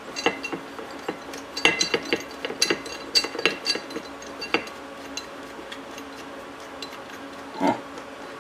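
Steel bolts clinking and tapping against a flat metal plate as they are handled and set into its holes: a quick run of small metallic clinks in the first half, then only a few.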